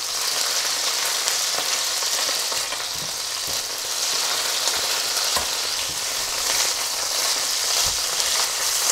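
Chicken pieces sizzling in hot oil in a frying pan: a steady frying sizzle as they brown. A few light knocks come from the slotted spatula against the pan as the thighs are lifted out.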